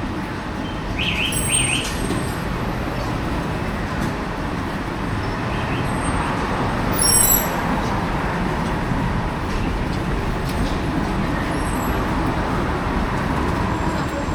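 Busy street ambience: a steady wash of traffic noise, with a few short high chirps about a second in and again around the middle.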